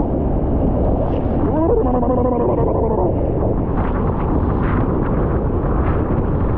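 Steady roar of a large waterfall mixed with strong wind buffeting the microphone. A brief wordless voice, like a drawn-out exclamation, rises over it about two seconds in.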